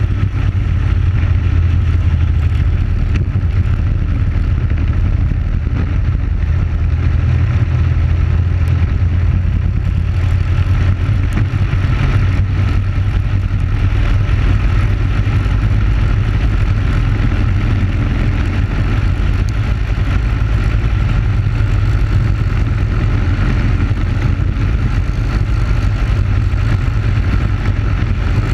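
Onboard sound of a racing kart at speed: its Briggs & Stratton Animal single-cylinder four-stroke engine running hard and steady, with no lifts or big changes in revs.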